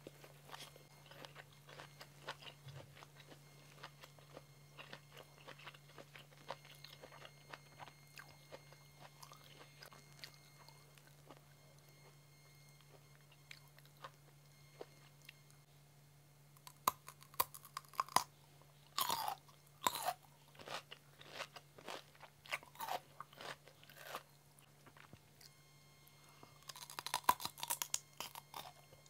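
Close-miked chewing with faint clicking, then from about halfway loud, crisp crunching bites into a raw cucumber and chewing, in clusters with short pauses between them.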